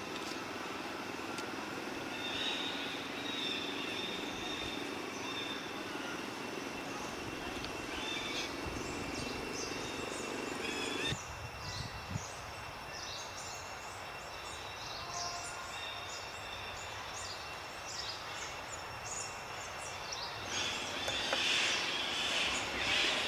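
Forest ambience: a steady high insect drone with scattered bird chirps, the chirping growing busier and louder near the end. A low rumble under it stops abruptly about halfway through.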